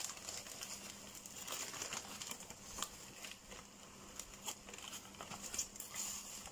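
Packing paper and newspaper crinkling in quiet, irregular crackles as they are pulled open by hand from around a potted cactus.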